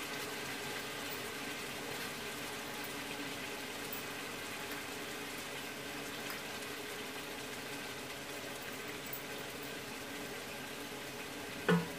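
Mutton and spices cooking in a large aluminium stockpot on the stove, a steady bubbling sizzle. A short louder sound comes near the end.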